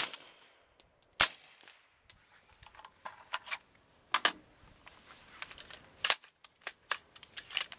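Two shots from a suppressed AR-15 rifle, about a second apart, each a sharp crack with a short tail, followed by several fainter sharp clicks and knocks.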